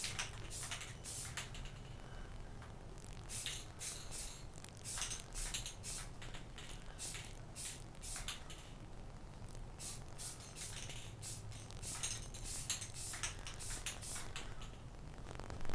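Aerosol spray-paint can hissing in many short bursts, laying a second coat on a pair of bicycle forks.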